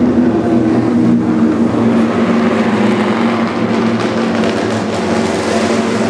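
BMW flat-twin (boxer) engine of a classic racing sidecar idling steadily.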